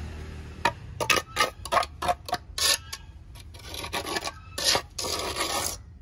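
Small metal trowel scraping and smoothing wet cement mortar in a pot mould. It makes a quick run of short strokes, then a few more ending in one longer scrape near the end.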